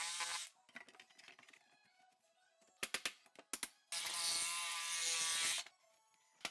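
A handheld cordless power tool's motor running in two short bursts, one right at the start and a longer one of under two seconds about four seconds in, with a few sharp knocks in between.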